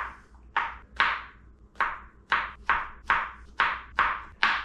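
Small kitchen knife slicing mushrooms on a cutting board: a run of sharp taps, about two to three a second, as the blade comes down through each mushroom onto the board.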